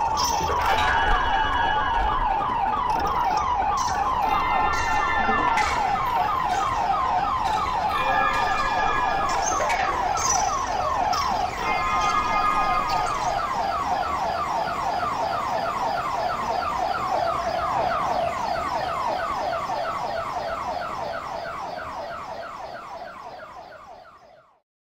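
Electronic music built from treated field recordings: a dense warbling texture of rapid, repeated falling chirps around one pitch band, with brief held high tones in the first half, fading out to silence near the end.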